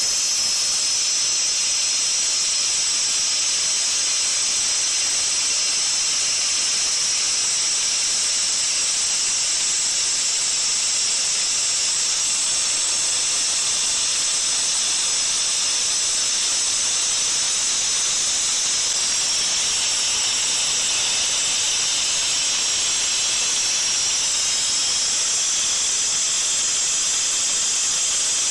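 Waterjet cutter's high-pressure jet hissing steadily as it cuts through a rusty steel box-section tube.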